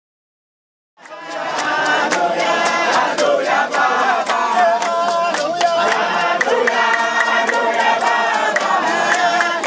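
A crowd singing together in chorus with hand-clapping in time, starting about a second in.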